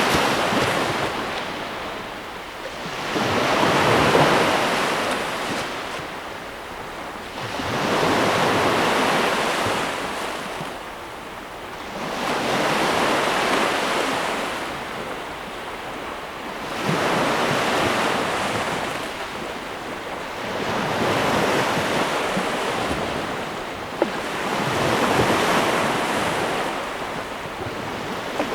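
Ocean surf: waves washing in and out in a slow, regular rhythm, each one swelling and fading over about four seconds, seven in a row.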